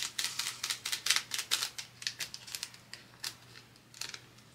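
Diamond-painting drills, the small resin rhinestones, clicking and rattling as they are shaken out of a small plastic bag. It is a quick, uneven run of sharp ticks that thins to a few scattered clicks after about two seconds.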